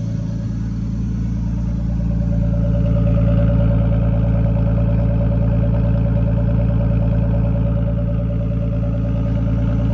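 Turbocharged straight-six engine of a single-turbo Nissan Skyline R32 running at a steady speed, growing a little louder over the first few seconds and then holding.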